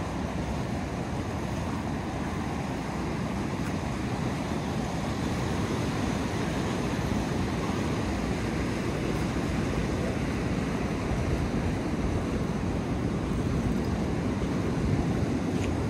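Steady rushing of whitewater pouring down a concrete rapids channel, mixed with wind buffeting the microphone.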